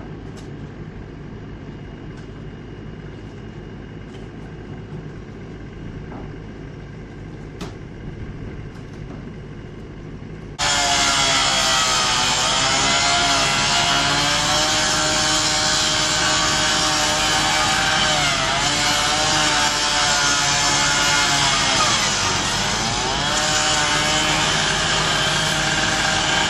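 Power saw with a cutting disc, running loud and steady as it cuts through a car's sheet metal, throwing sparks. It starts abruptly about ten seconds in, and its pitch dips twice as the blade bites into the metal. Before that there is only a low steady hum with a few light knocks.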